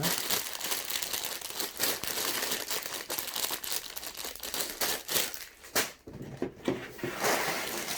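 Sealed plastic bags of Lego pieces being handled, crinkling steadily, with the pieces inside shifting. The sound briefly eases about five and a half seconds in.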